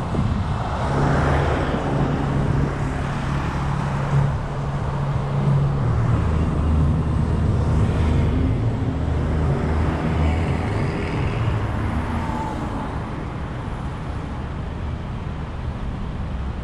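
Road traffic: vehicle engines running with a steady low hum and tyre and road noise, and one vehicle passing close by about a second in.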